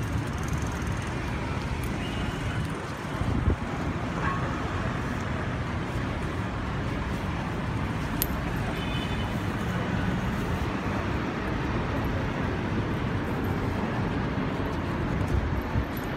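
Steady outdoor street noise, a low traffic hum, with a couple of faint clicks.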